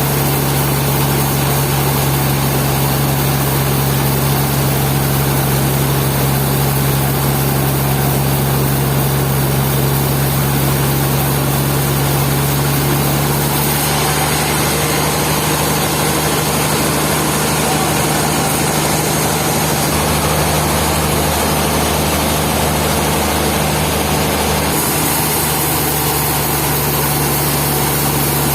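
Sawmill machinery running with a steady low hum. The sound shifts abruptly about halfway through and again near the end.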